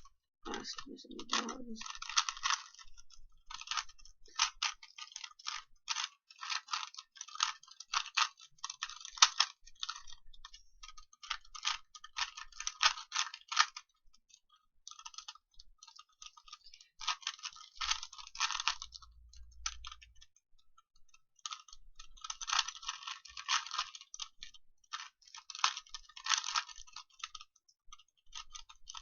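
A 3x3 Rubik's Cube being turned by hand in a timed solve: rapid plastic clicking and rattling of the layers turning, in bursts with brief pauses.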